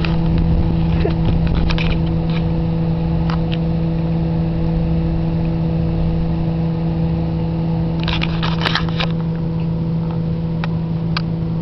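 Steady machine hum at a constant pitch, with a cluster of short clicks and rustles about eight seconds in.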